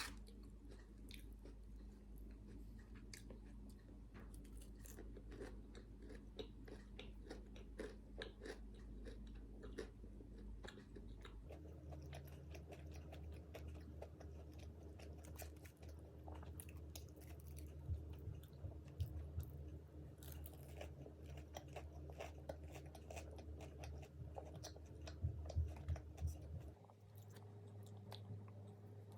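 Close-miked chewing and biting of crunchy fried food, with many quick crackling crunches, over a low steady hum that changes pitch about a third of the way in and again near the end.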